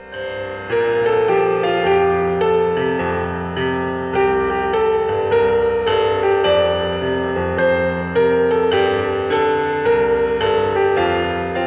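Piano music: a slow melody of single struck notes over held chords.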